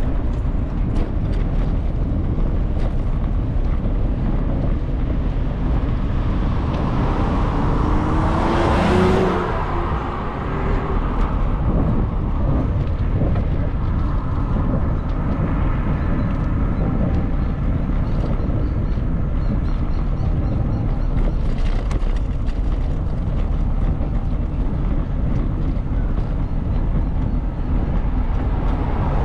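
Steady wind rumble on the microphone of a moving bicycle, mixed with street traffic. A motor vehicle passes about nine seconds in, building up and fading away, and is the loudest moment.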